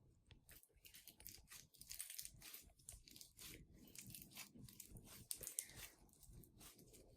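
Faint wet crackling and squishing of slime being kneaded and stretched by hand, in many small irregular pops.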